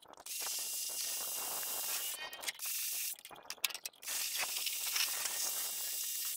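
Water spraying from a hose wand and hissing against a lawn tractor as it is washed down. The spray stops a little after two seconds in and starts again about four seconds in.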